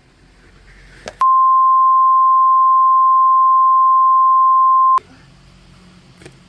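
A loud, steady single-pitch electronic tone near 1 kHz. It starts sharply about a second in, holds for nearly four seconds with nothing else audible behind it, and cuts off abruptly.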